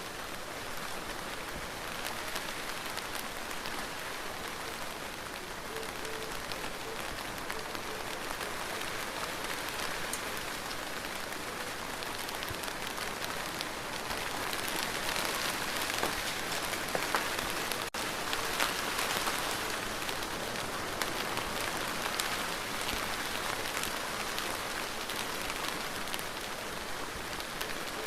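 Steady rain falling, a continuous hiss scattered with the ticks of single drops, getting a little heavier about halfway through.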